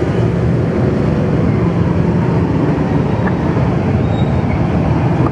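Steady, loud low rumbling noise with no clear pitch and no separate knocks.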